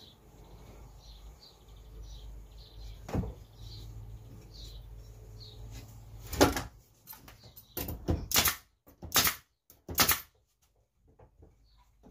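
Pneumatic nail gun firing nails into pine battens on a frame: a knock about three seconds in, then a run of five sharp cracks from about six seconds in, over a low hum that stops at the first crack.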